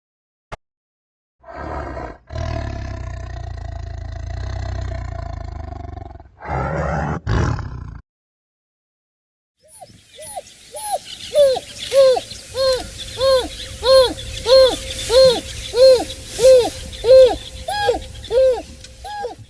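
Wild animal sound effects. First a low, rumbling roar-like growl that lasts several seconds, followed by a shorter second growl. After a pause comes a long series of evenly repeated hooting calls, each rising and falling in pitch, about one and a half a second.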